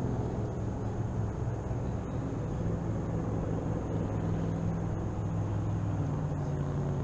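An engine running steadily with a low hum, with a faint high whine over it.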